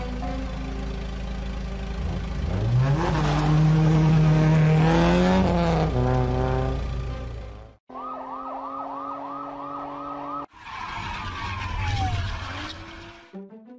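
Police car engine humming, revving up about three seconds in, holding and dropping back, then its siren yelping in quick repeated rises and falls for a couple of seconds, followed by a falling whoosh near the end.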